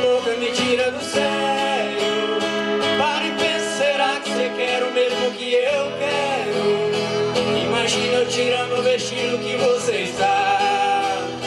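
Live band music with acoustic guitar, drums and a sung melody line.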